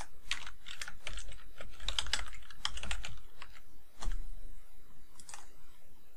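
Typing on a computer keyboard: a quick run of keystrokes entering a password. About four seconds in there is a single louder click, and one more click about a second later.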